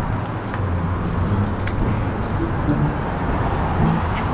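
Steady street noise of road traffic running along the road beside the pavement.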